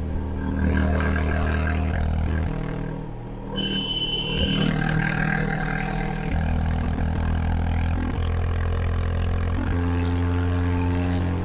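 Honda H'ness CB350's single-cylinder engine running under way, its note easing off and falling quieter about three seconds in, then picking back up and pulling steadily again from about six seconds.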